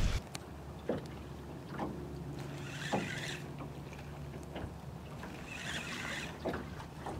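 Spinning reel's handle turned in short spells with pauses between, a stepped jig retrieve, over a low steady hum and a few light clicks.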